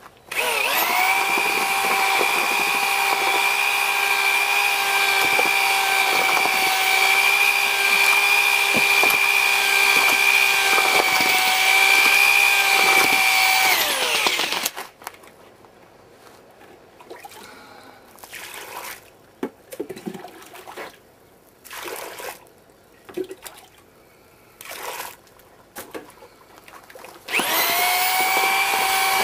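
Electric drill driving a bucket mortar mixer's auger through dry mortar mix in a plastic 5-gallon bucket, running at a steady whine for about fourteen seconds before winding down. Scattered short scrapes and knocks follow. Near the end the drill starts again, now churning the mortar with water added.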